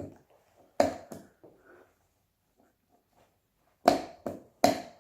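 Sharp clicks and knocks as the watch cuff is pushed into the watch winder's rotating drum and snaps into place: two about a second in, then three in quick succession near the end.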